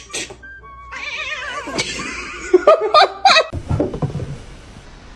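A cat meowing in drawn-out, wavering calls, with a few shorter cries near the middle.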